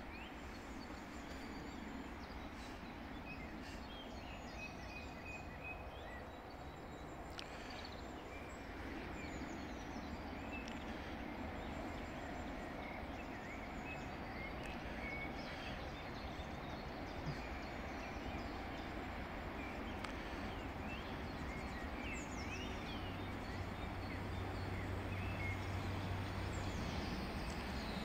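Birds chirping and singing over steady outdoor background noise. Late on, a low engine hum creeps in and grows: a Voith Gravita diesel-hydraulic locomotive approaching in the distance.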